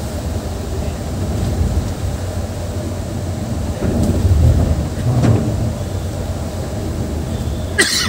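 Moving bus: a steady low rumble of engine and road noise that swells twice around the middle, with a sharp knock near the end.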